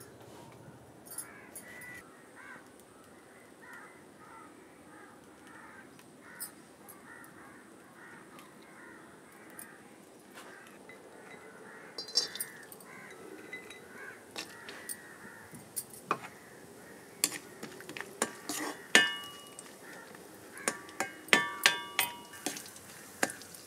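Crows cawing in the background. From about halfway, cashew nuts drop into a hot iron kadai with light clicks, followed near the end by a run of sharp, ringing clinks of kitchen utensils.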